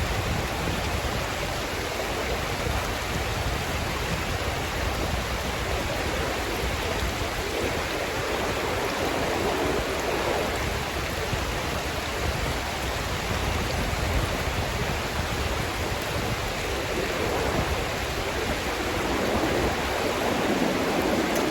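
Fast river current rushing steadily through pocket water.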